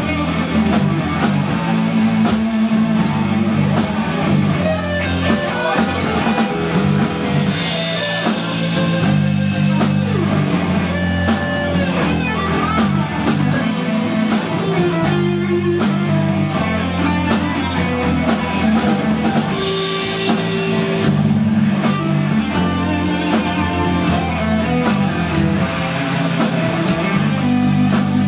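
Live rock band playing: electric guitar over bass guitar and a drum kit.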